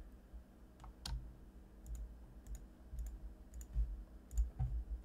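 Computer mouse clicking in separate single clicks, about one every half to one second, as edges are selected one by one. Faint low thumps sit beneath the clicks.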